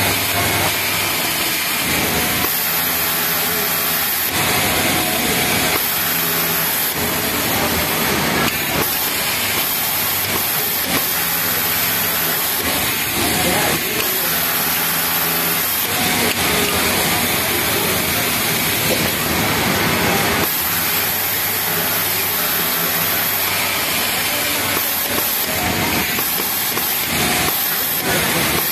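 Pegasus MX four-thread overlock sewing machine sewing at high speed in runs of a few seconds as a T-shirt side seam is fed through, over a constant hiss of factory machinery.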